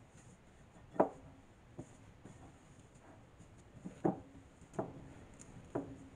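Hands kneading glutinous rice flour and water in a glass mixing bowl, with soft rubbing and five sharp knocks of the hands against the bowl, each ringing briefly; the loudest comes about a second in.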